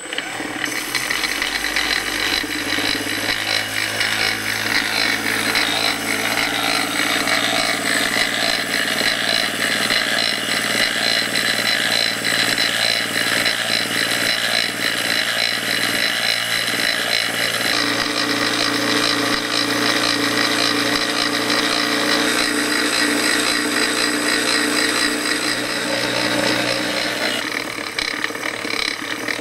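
Home-built ironless axial-flux brushless DC motor running on an RC speed controller, a steady whine of several pitches over a rough mechanical rattle. Its pitch shifts about two-thirds of the way through, and it gets a little quieter near the end.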